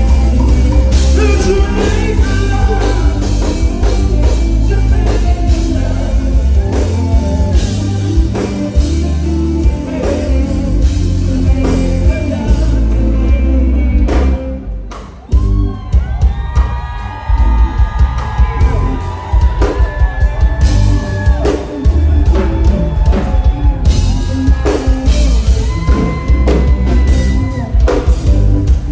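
Band music with singing over heavy bass and drums, with a short break about halfway through before the band comes back in.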